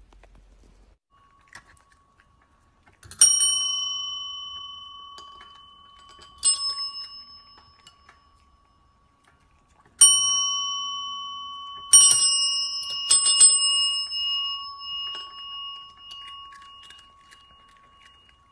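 Two chrome service (counter) bells dinging about six times: three single dings a few seconds apart, then three in quicker succession about twelve seconds in. Each ding rings on with a bright metallic tone and fades away.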